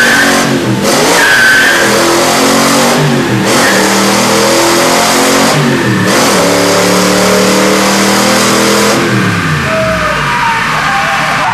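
Chevy 283 small-block V8 with side-pipe exhausts pulling hard on a chassis dyno in a quarter-mile run. The revs climb and drop sharply at three gear shifts, hold high, then fall away as the throttle is let off about nine seconds in. A brief squeal of wheel spin comes just after the first shift.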